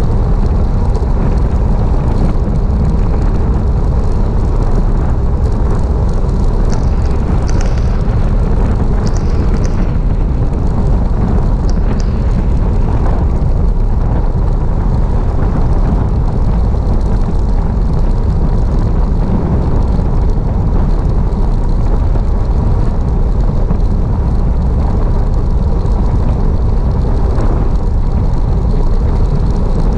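Wind rushing over the microphone of a bike-mounted camera on a fast road-bike descent: a loud, steady, deep rush.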